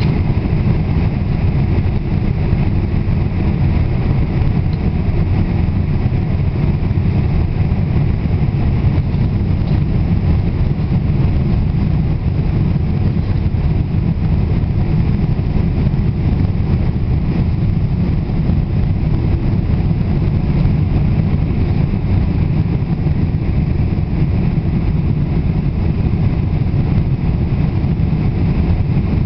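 Steady cabin noise of a Boeing 747 in flight: engine and airflow noise, deepest and loudest low down, unchanging throughout.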